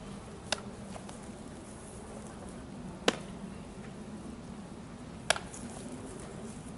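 A baseball smacking into leather gloves during a game of catch: three sharp pops, the first faint, the other two louder.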